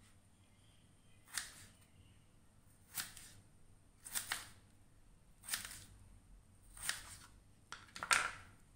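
Kitchen knife cutting down through a peeled raw potato and striking the cutting board: about six separate cuts, a second or more apart.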